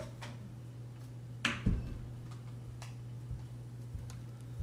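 A few separate sharp clicks and taps over a steady low hum, the loudest click about one and a half seconds in followed by a soft thump.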